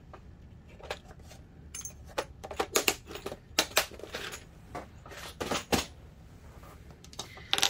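Irregular light clicks and clinks of small metal hardware and hard plastic being handled on a table, the loudest a few seconds in and again near the end.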